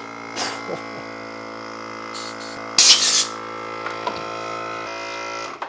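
Viair TLC Pro 12-volt mini bike compressor's motor running with a steady hum. About three seconds in there is a short, loud rush of air as the compressor blasts into a tubeless bike tire and seats the bead. The motor stops shortly before the end.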